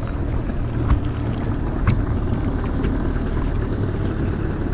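Fishing boat running underway: a steady low rumble of motor and water, with wind on the microphone. Two sharp knocks come about one and two seconds in.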